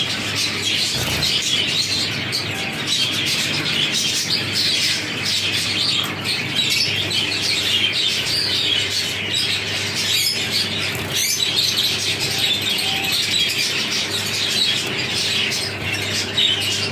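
A flock of aviary finches chirping without a break, a dense chatter of many short high calls, over a faint low steady hum.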